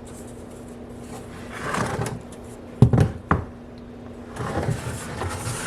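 Handling noises: scraping and rustling, with two sharp knocks about half a second apart near the middle, over a faint steady hum.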